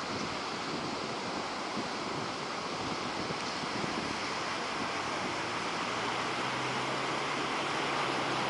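Surf breaking and washing up on a sandy beach, with wind buffeting the microphone. A faint low hum comes in about six seconds in.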